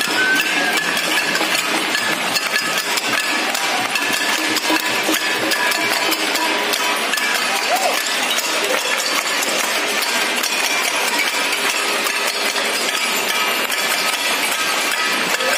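Crowd of neighbours clapping and banging steel plates and utensils all together, a dense, continuous metallic clatter of many strikes with a few ringing tones in it.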